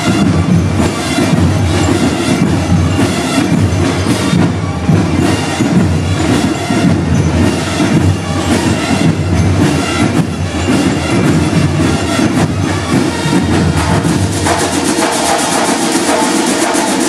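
Marching band drum line playing a fast, dense street cadence, changing to a different passage about fourteen seconds in.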